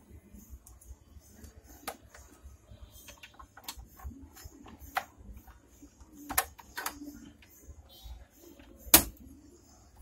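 Irregular plastic clicks and knocks as RAM sticks are pushed into a desktop motherboard's memory slots, with the sharpest click near the end.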